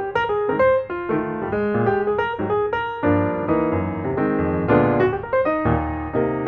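Piano music: a lively melody of short, separate notes over lower chords.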